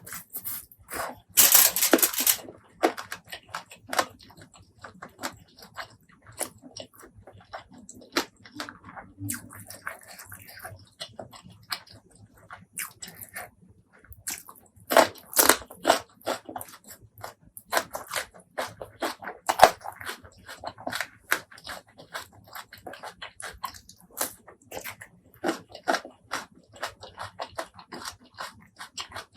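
Close-miked eating: crunchy bites and wet chewing in quick irregular clicks and crackles, with loud crunches about two seconds in and again around the middle.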